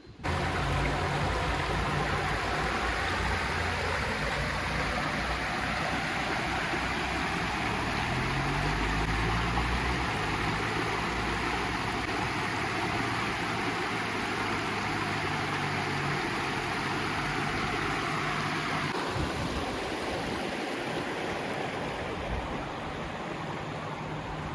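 Clear mountain river flowing over its stony bed: a steady, fairly loud rush of water that cuts in abruptly at the start, with a low rumble underneath that drops away about 19 seconds in.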